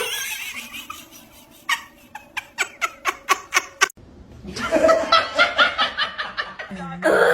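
People laughing in quick, repeated bursts, with a break just before halfway and a new run of laughter after it.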